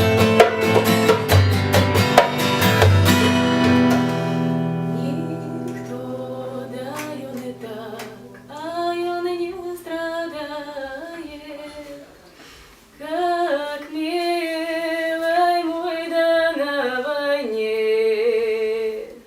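Song music: strummed acoustic guitar and percussion playing together, thinning out after about four seconds into held notes. A slow, wavering solo melody line comes in about eight seconds in and cuts off near the end.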